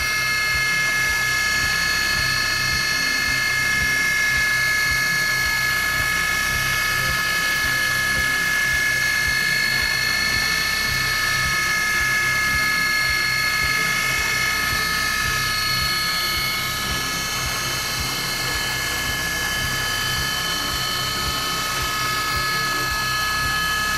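ProtoTrak DPM3 CNC mill spindle running at high speed with a steady high-pitched whine while its pointed engraving cutter cuts lettering into a metal bar.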